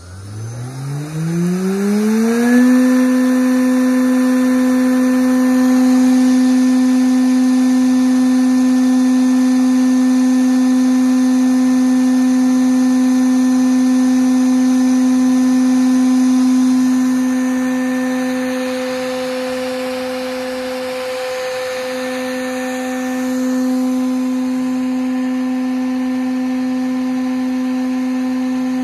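Electric motor on a CNC motion-control test bench spinning up, its whine rising in pitch over about two seconds, then running at constant speed with a steady whine. Around two-thirds in the tone dips briefly and the level drops slightly before settling again.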